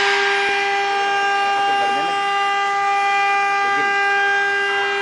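CNC router spindle motor running at speed, a steady high whine with several tones stacked above it, over a light hiss of cutting.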